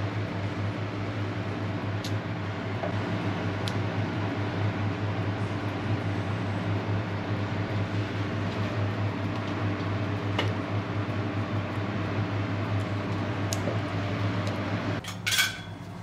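Steady fan-like machine hum and rush with a low drone and a few faint ticks. Near the end it drops away and a short, sharp clatter sounds.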